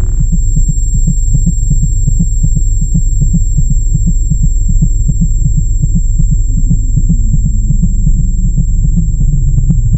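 Lightsaber sound effect: a loud, low electric hum with a fast, even pulsing flutter.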